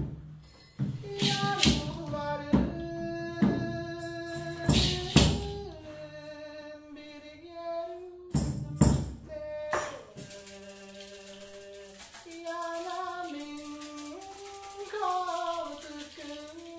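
Experimental music: a voice sings long held notes that step up and down between pitches. Loud percussive strikes sound over it for about the first ten seconds, then a fine rattling hiss takes over.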